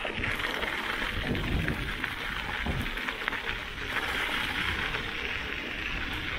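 Bicycle tyres rolling over a loose gravel path at speed: a steady crunching rush with many small clicks and rattles.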